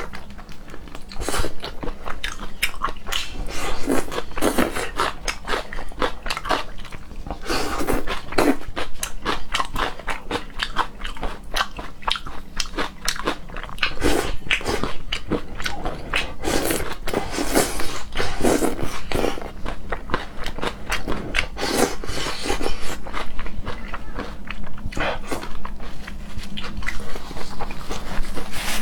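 Close-miked chewing and crunching of food in a person's mouth, with many irregular crisp bites.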